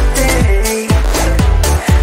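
Background music with a steady beat and repeated notes gliding down in pitch.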